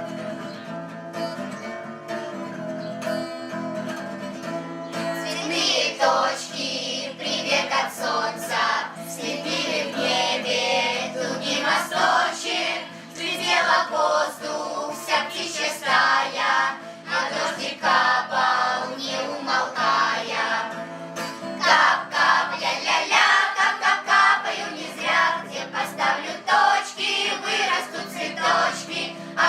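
A song sung by a group of voices over guitar accompaniment. It opens with about five seconds of instrumental, then the singing comes in and runs on with short breaks between lines.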